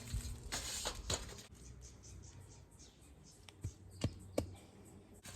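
Light handling noises: a few soft rustles, then four sharp clicks or knocks close together near the middle.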